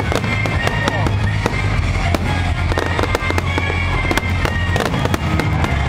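Fireworks display: a dense run of aerial shell bursts and crackling, with music playing underneath.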